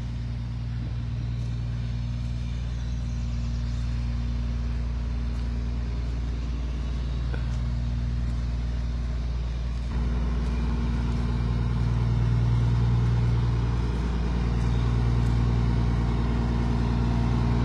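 Heavy truck engine idling steadily, a low even hum that gets louder about ten seconds in.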